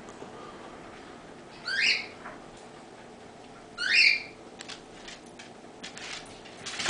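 A cockatiel calling twice, each a short rising whistled call, about two seconds apart.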